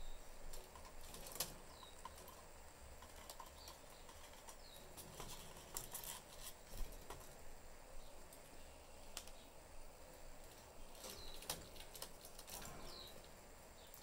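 Budgerigars moving about their wire cage: scattered light clicks and taps, with a few short, high chirps that fall in pitch.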